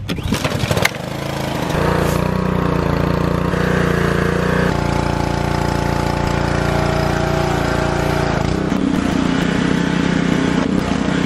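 A few knocks in the first second, then a gas pressure washer's small engine running steadily, its tone shifting twice as the spray gun is worked.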